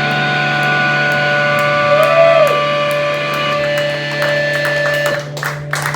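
Live rock band's electric guitars ringing out held notes over a steady low drone, with a couple of notes bending up and back down and even ticks behind them, as the song ends. The sound thins out briefly near the end.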